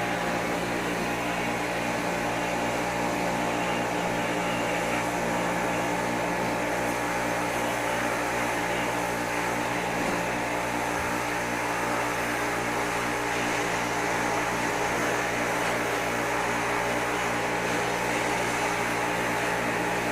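A motor-driven machine running steadily, a constant hum with a steady whine over an even rushing noise.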